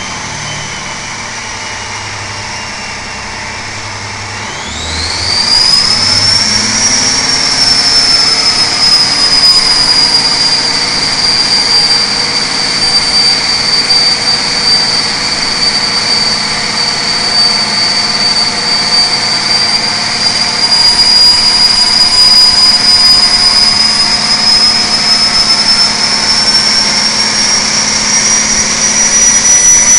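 Detroit Diesel Series 60 inline-six diesel on an engine dyno. It runs at part throttle, then is opened to full throttle about five seconds in: the engine gets sharply louder and a high turbocharger whine sweeps up and holds. Near the end the whine climbs slowly again as the dyno loads the engine and boost builds.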